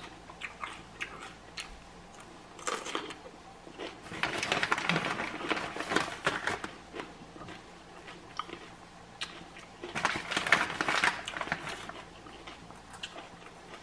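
Crinkling of a Takis chip bag as a hand rummages inside it, in two main bursts a few seconds long, with small rustles and clicks between.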